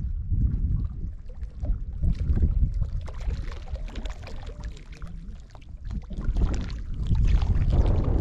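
Small lake waves lapping and splashing against a stony shore, with wind rumbling on the microphone.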